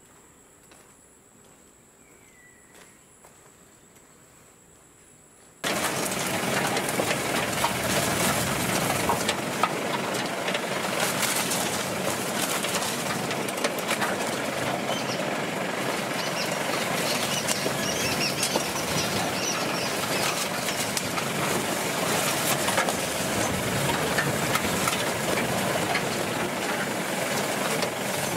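Steady high insect buzzing with a short bird chirp, then after about five seconds a sudden switch to the loud, dense noise of a jeep driving along a rough forest dirt track: the engine running under a constant rattle and knocking of the vehicle over the ruts.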